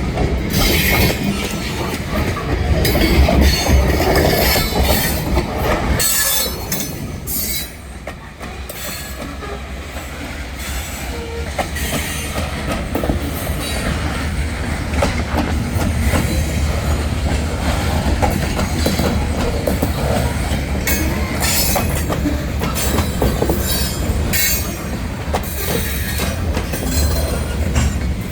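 Train cars rolling past with a steady low rumble, wheels clicking over the rails and squealing at times.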